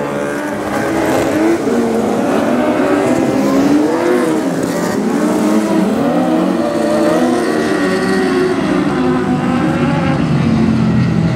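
Engines of several compact speedcars racing together, their pitches rising and falling as the drivers rev and back off.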